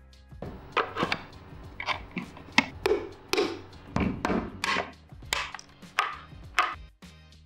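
Plastic-headed mallet tapping grey 3D-printed PLA drawer parts together, a string of irregular sharp knocks and clicks as the pieces are seated. The loudest knock comes a little past halfway.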